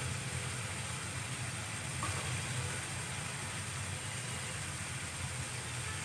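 A curry simmering over a lit gas burner, giving a steady low hum with an even hiss over it.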